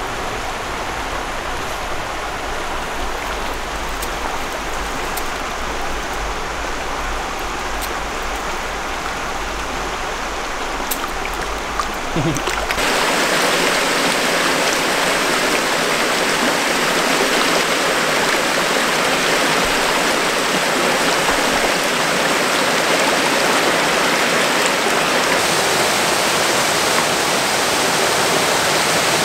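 Steady rush of a small mountain creek. About thirteen seconds in it turns louder and brighter, the splashing pour of a small waterfall into a pool.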